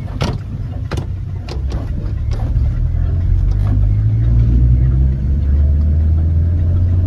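Car engine and road noise heard from inside the cabin, a low steady drone that grows louder and evener about halfway through. A few sharp knocks sound in the first couple of seconds.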